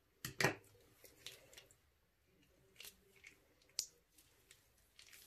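Clear plastic piping bag crinkling and crackling as it is pressed and squeezed into sticky slime, with soft squishing; irregular sharp crackles, the loudest two close together about half a second in, then scattered smaller ones.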